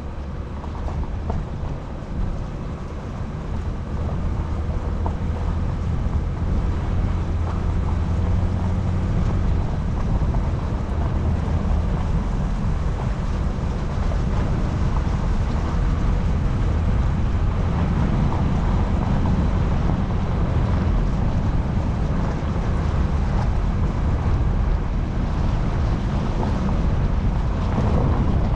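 Car driving, with a steady low rumble of road and wind noise that grows louder about four seconds in.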